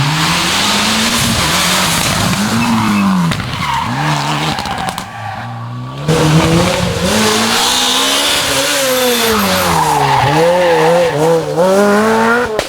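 Rally car engine revving hard through a special stage, its pitch repeatedly climbing and dropping with throttle and gear changes. The sound cuts abruptly to another pass about six seconds in.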